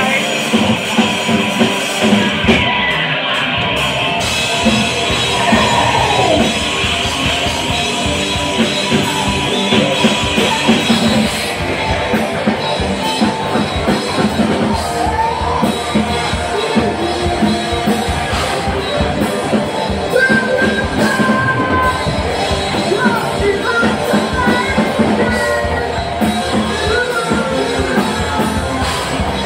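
Live rock band playing loud in a hall: electric guitars, bass and drum kit, with a vocalist singing over them.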